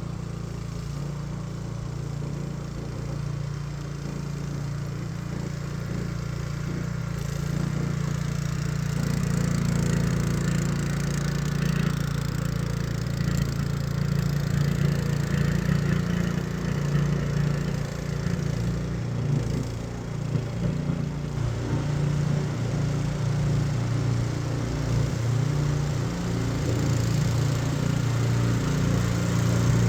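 Small single-cylinder gasoline engine (224cc) of a remote-control lawnmower running steadily while the machine pushes dirt and gravel with its front blade. The engine note wavers with the load and grows a little louder toward the end.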